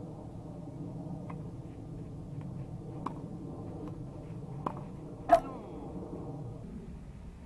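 Tennis ball being struck with rackets during a rally on a clay court: a few sharp pocks a second or so apart, the loudest a little past halfway with a short ring after it, over a faint steady background noise.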